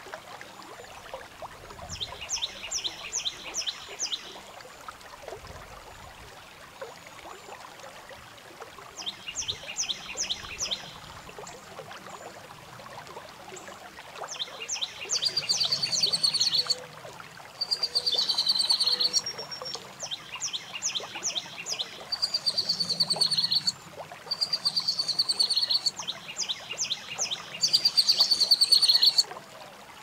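Birdsong from a bird video playing on a television: repeated phrases of rapid high trilled notes, each about two seconds long, a few apart at first, then coming one after another and louder through the second half.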